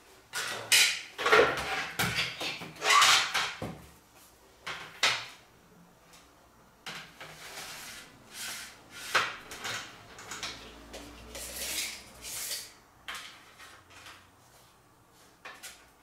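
Hard plastic window-slider panels being handled: irregular knocks, rattles and sliding scrapes of the pieces against each other and the floor, busiest in the first few seconds and sparser after.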